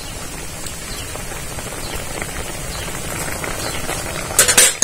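Prawn curry bubbling and crackling in a metal pan. Near the end, a few loud clatters of a metal spoon against the pan as the stirring starts.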